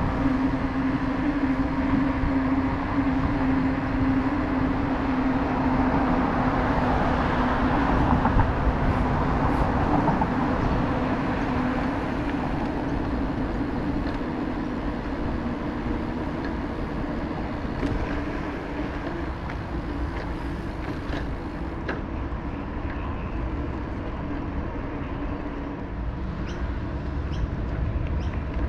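Electric mountain bike under way: a steady motor hum over a wash of tyre and wind noise, with a few light ticks in the second half.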